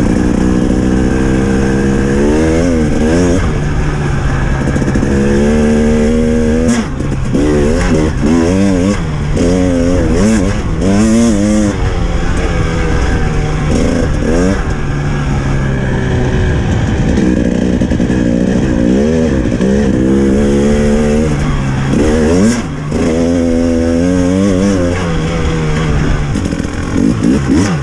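Off-road dirt bike engine being ridden, its pitch climbing and falling again and again with throttle and gear changes, with a couple of brief drops in level along the way.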